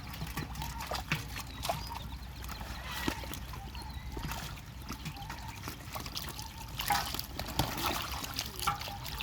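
Pond water trickling and splashing in many small irregular splashes, busier about seven seconds in.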